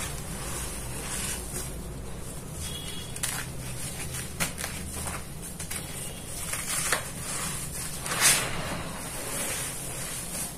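Soft, dry red dirt crumbled and squeezed between bare hands in a bowl: a soft powdery hiss as it sifts down through the fingers, broken by a few sharper crunches as lumps give way, the loudest a little past three-quarters through.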